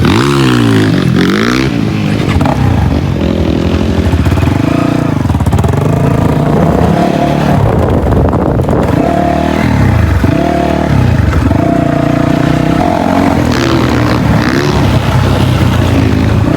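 Dirt bike engine running while ridden, its pitch rising and falling again and again as the throttle is opened and closed, with a quick rise in revs at the start.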